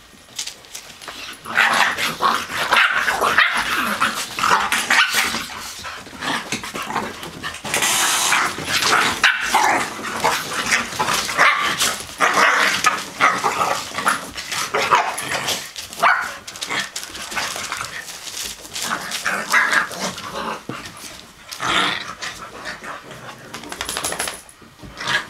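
Dogs barking in play in quick irregular bouts, starting about a second and a half in: a blue nose pit bull with her ten-week-old puppies and a chihuahua.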